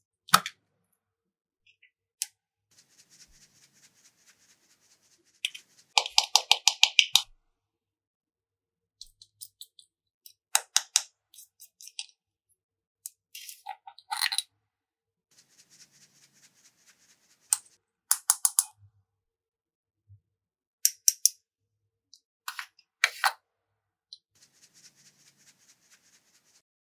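Slime being worked by hand, with short bursts of quick crackling pops and faint scraping or rustling between them.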